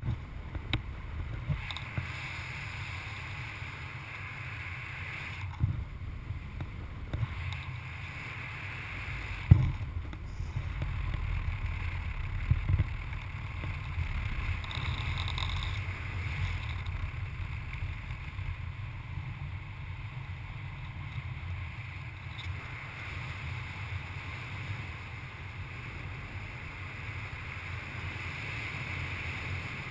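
Wind buffeting a paraglider pilot's harness-mounted camera microphone in flight: a steady low rumble with airy hiss. A few short knocks stand out, the loudest about nine and a half seconds in.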